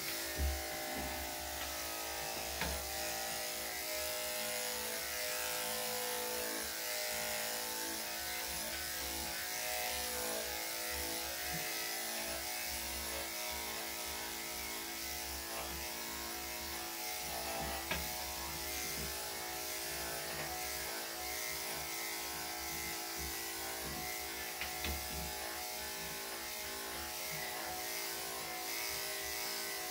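Electric dog grooming clippers with a #5 blade running at a steady buzz as they are drawn through a dog's coat.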